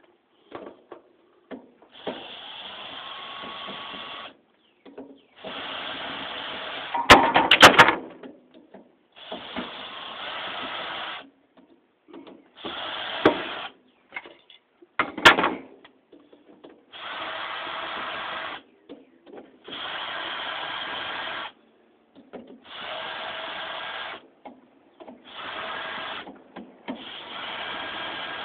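Power drill running in about nine short bursts of a second or two each, with a few sharp metal clanks in between, the loudest about seven seconds in.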